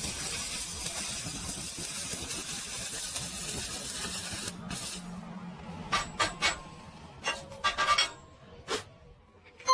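MIG welding arc crackling steadily, stopping about four and a half seconds in. Several sharp knocks with a short ring follow, one after another.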